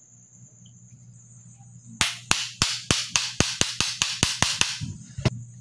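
Rapid series of sharp metal-on-metal clicks, about five a second for nearly three seconds, then two more: a gas stove burner control valve being worked while gripped in pliers.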